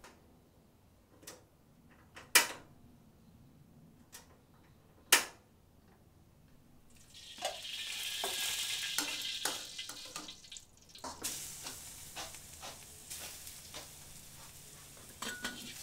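A few sharp knocks of cookware, then from about seven seconds in, food sizzling loudly as it goes into a hot pan, with clinks of a utensil stirring it. The sizzle is strongest at first and dies down over the following seconds.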